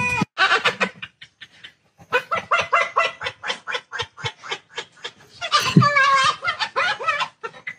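A parrot imitating human laughter: runs of short, quick 'ha' notes, about five a second, broken by a louder, longer wavering call a little past halfway, then more short notes.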